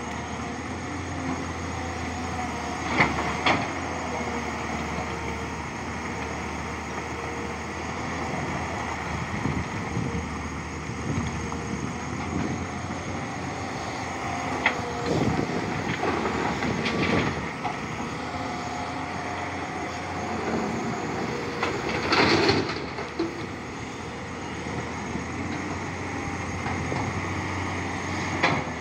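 Tata Hitachi crawler excavator's diesel engine running steadily under hydraulic load, with several loud crashes of broken rock as the bucket dumps into the steel body of a dump truck and digs into the rock pile.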